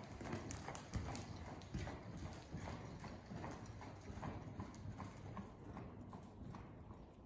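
Hoofbeats of a ridden horse moving on sand arena footing, a steady rhythm of about two to three soft thuds a second.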